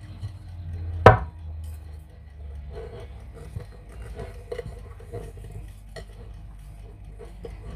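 Glass mixing bowl knocking sharply once on a wooden board about a second in as it is turned upside down. Light knocks and handling sounds follow as the bowl is tilted and the risen yeast-bread dough released.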